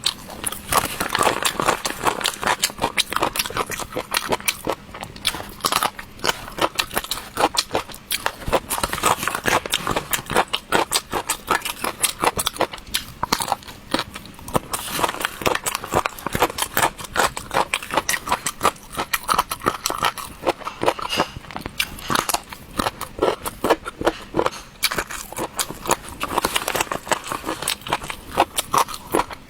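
Close-up biting and chewing of a crunchy triangle-bone snack: dense, irregular crunches and crackles.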